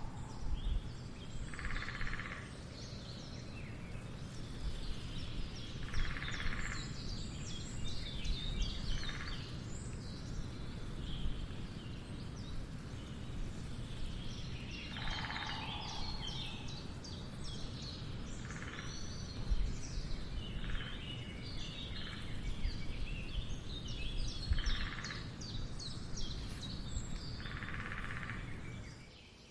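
Woodland ambience: about seven short bursts of woodpecker drumming, each under a second, among many small birds chirping, over a steady low rumble.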